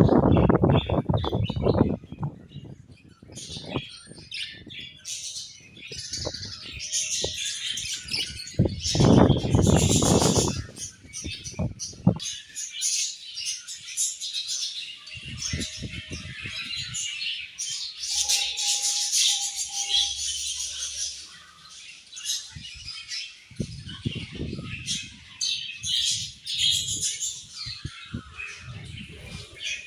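Budgerigars chirping and chattering continuously, with several louder bursts of wing flapping, the loudest about nine seconds in.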